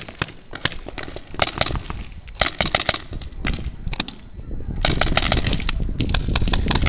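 Paintball markers firing sharp shots, some single and some in quick strings. About five seconds in, a louder low rushing noise comes in under the shots.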